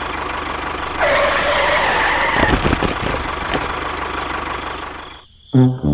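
Tractor engine running steadily, with a squealing whine for about a second and a half starting about a second in, then a few clicks as the engine sound fades out. Brass-like music begins near the end.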